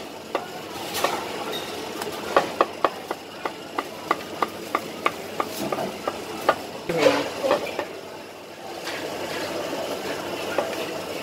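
Steel cleaver chopping poached chicken on a thick round wooden chopping block: a run of sharp chops, about three a second, that stops about eight seconds in, followed by steady background din.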